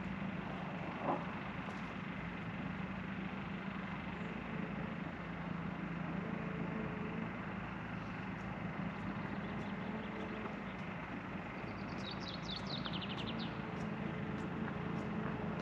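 A steady low mechanical hum, like an engine running, over a constant background rush. About twelve seconds in, a bird sings a short trill of quick notes that fall in pitch.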